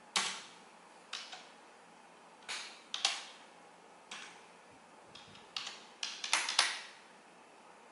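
Slow, uneven typing on a computer keyboard: about ten separate key clacks with pauses between them, a few coming in quick runs near the end.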